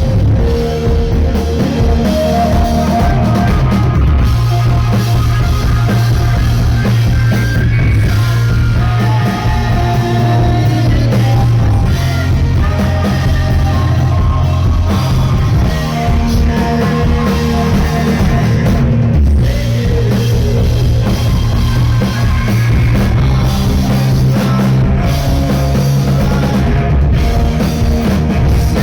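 Rock band playing live, with drum kit and guitars over heavy, sustained low notes, loud and continuous.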